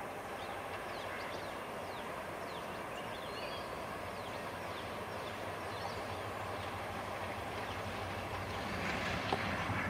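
Diesel-hauled train on the line: a steady rumble that slowly grows louder, with the diesel locomotive's engine hum coming up strongly near the end as it approaches.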